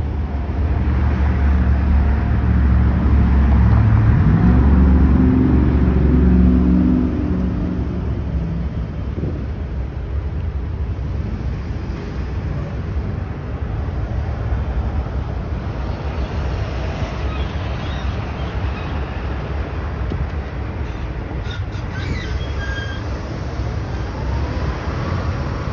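A loaded coal train of freight cars rolling past on an elevated track, a steady rumble, mixed with street traffic. A road vehicle's engine accelerates loudly through the first several seconds, its pitch stepping up. A few short high squeals come near the end as a semi truck drives through.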